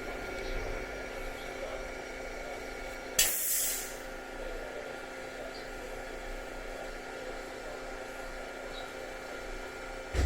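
JR Central 373 series electric train standing at the platform, its onboard equipment giving a steady hum of several constant tones. A short, sharp burst of compressed-air hiss a little over three seconds in, and a brief low thump near the end.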